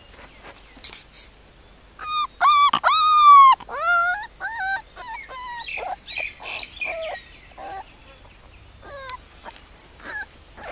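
Young puppy whining and whimpering: a run of high, wavering cries, loudest about two to four seconds in, followed by shorter, quieter whimpers at intervals.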